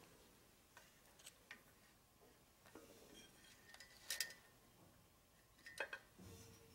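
Faint clicks and taps of a power cord's plug and cables being handled, the sharpest a couple of ticks about four seconds in and again near six seconds, then a soft knock.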